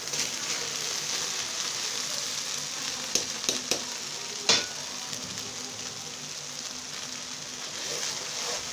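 Oil with fried onion sizzling steadily in a cooking pot as drained, half-boiled rice is tipped in and turned with a wooden spatula. The spatula knocks against the pot four times between about three and four and a half seconds in, the last knock the loudest.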